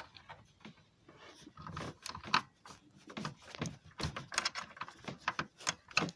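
Irregular plastic clicks and rattles of PC cable connectors and wires being handled and pushed into sockets inside a computer case.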